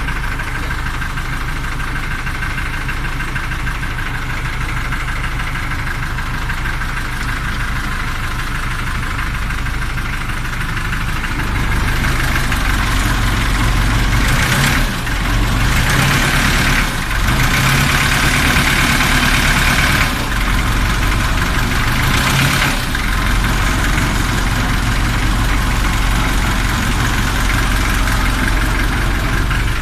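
A ferry boat's engine running steadily, heard from on board. It gets louder about twelve seconds in, with a rushing hiss over the engine for several seconds.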